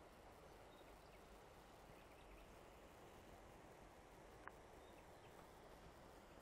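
Near silence: a faint steady background hiss, with a few tiny ticks and one short, sharp chirp about four and a half seconds in.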